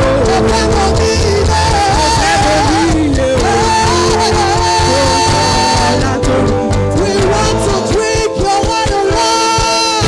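Music with singing: a wavering melody line over steady, held low chords.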